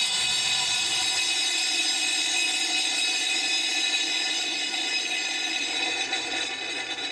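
Metal object pressed against dry ice, singing out in a loud, steady, harsh squeal made of many overtones at once, easing slightly near the end.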